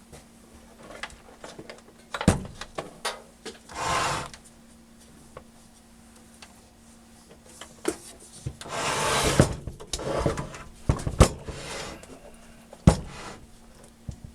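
A heavy benchtop test instrument, a microwave network analyzer, being turned around by hand on a table: several sharp knocks and two longer scraping, sliding sounds, the first about four seconds in and the longer one around nine seconds in.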